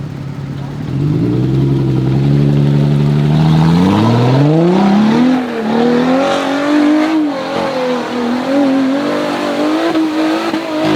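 Jeep Wrangler engine running at a steady low speed, then revving up about four seconds in and held at high revs, rising and falling unevenly, before easing off at the very end.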